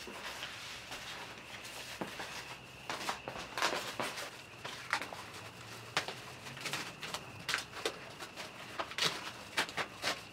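Plastic crinkling and rustling in short, irregular crackles as plastic wrap is wound around the legs and the plastic tarp beneath shifts.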